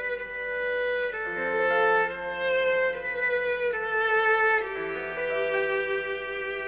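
Violin playing a slow melody in long held notes, sometimes two notes sounding at once.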